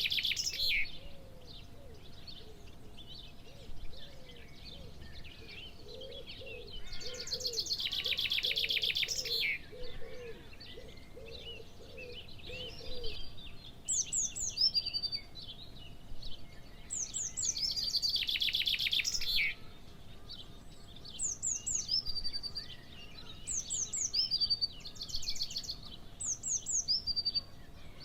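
Several birds singing. One gives a rapid trill about two seconds long, twice. Others repeat short down-slurred high whistles, which come thick and fast through the second half, while low repeated notes sound through the first half.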